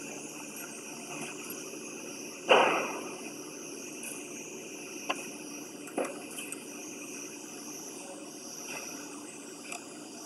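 Metal belt buckles clinking and leather belts rustling as they are handled and hung on metal pegboard hooks, over steady background noise. One louder clatter comes about two and a half seconds in, and a couple of sharp clicks follow a few seconds later.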